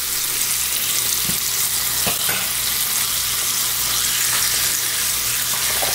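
Brook trout fillets frying skin-on in butter in a cast-iron skillet on low heat: a steady sizzle with a few pops and crackles.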